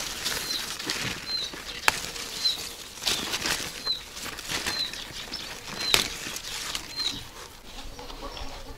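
Rustling leaves and light snaps and clicks as strawberry plants are handled while berries are picked. Behind them a bird gives a short high chirp, repeated about once a second.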